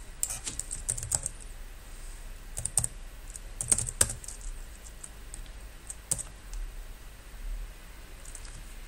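Computer keyboard typing in short runs of keystrokes, a few clusters over the first four seconds and a last keystroke about six seconds in.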